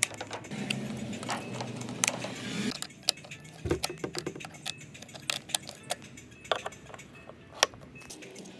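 Scattered clicks and clinks of hard plastic handle brackets, screws and a screwdriver as a portable fridge's carry handles are fitted, with a low hum for the first couple of seconds.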